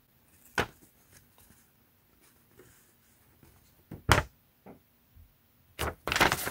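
Paper instruction leaflet being handled and unfolded: a few short, crisp rustles and snaps of paper, the loudest about four seconds in, and a longer rustle near the end.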